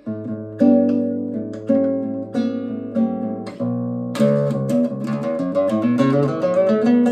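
Acoustic guitar played fingerstyle: plucked chords ringing out one after another, then from about four seconds in a quicker, busier run of notes.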